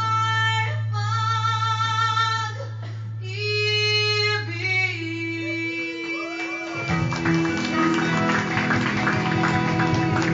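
Live band: a woman sings long, wavering held phrases over a steady low note. About seven seconds in, the guitars come in strumming busily.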